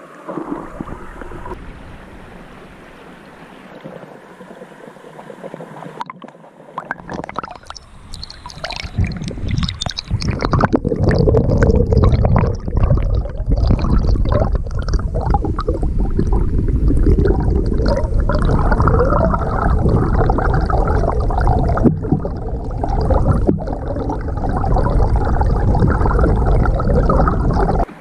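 Shallow stream water bubbling and rushing over an underwater camera housing. It grows much louder about eight seconds in, with a dense crackling churn.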